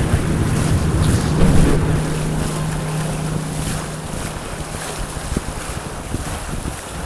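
Wind buffeting a kayak-mounted microphone over the wash of water and small surf around the kayak's hull. It is louder for the first couple of seconds, then eases.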